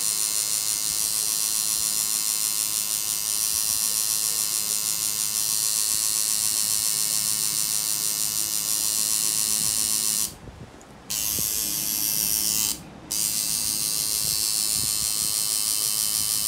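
Coil tattoo machine buzzing steadily in use on skin. It cuts out twice briefly, about two-thirds of the way through, then runs on.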